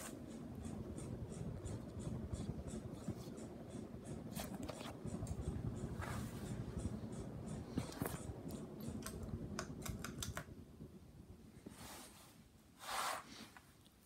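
Ceiling fans running together: a low whir with scattered light ticks and clicks, dying down about ten seconds in.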